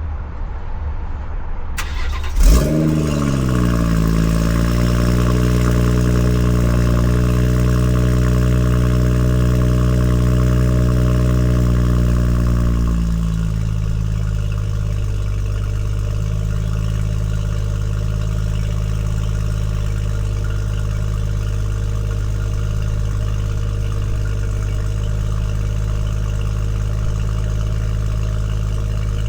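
BMW M140i's turbocharged 3.0-litre straight-six starting up, with a sharp flare about two and a half seconds in, then a raised idle whose pitch falls and holds. About thirteen seconds in it drops to a lower, steady idle.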